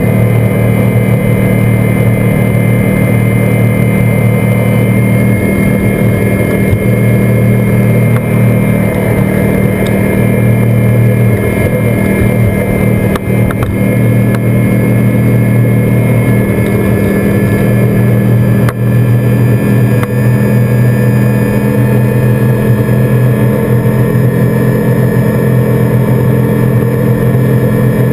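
Seven Marine 557 outboard, a supercharged GM LSA V8, running steadily at high speed while pushing a 29-foot boat.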